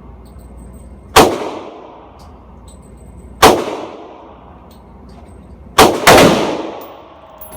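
AR-15 rifle firing four shots with a ringing, echoing tail after each. Three come about two seconds apart, then the last two follow each other within a fraction of a second.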